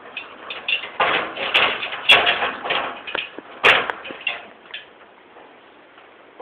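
An Australian Kelpie's claws and paws scrabbling on ladder rungs: irregular scraping and clattering with a few sharp knocks, dying down after about five seconds.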